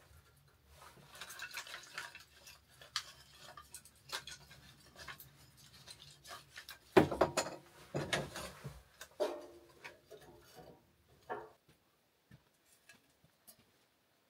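Kindling and firewood being handled at a wood stove: scraping and rubbing of wood, scattered knocks, and a loud clunk about seven seconds in followed by several more. The sounds stop a little after eleven seconds, leaving near quiet with a few faint ticks.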